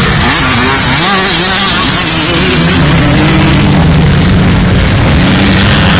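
Motocross dirt bike engines revving loudly, the pitch wavering up and down in the first couple of seconds, then running at a steadier pitch.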